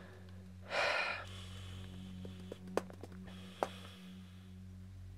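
A young man's loud breath, a sleepy sigh, about a second in as he settles to sleep in bed, followed by a few faint short clicks over a low steady hum.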